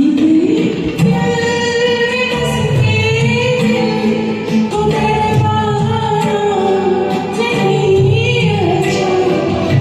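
A woman singing a Hindi film song over a karaoke backing track, holding long, gliding notes.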